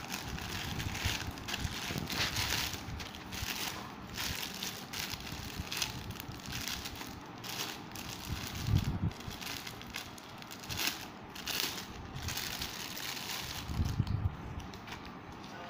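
Plastic courier mailer and clear plastic packing bag crinkling and rustling as they are opened and handled by hand, with a couple of dull bumps about midway and near the end.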